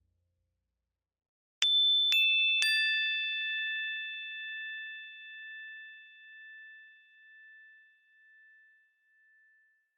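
Three struck chime tones, each lower than the last, about half a second apart, then ringing on together and fading slowly with a gentle pulsing in the decay.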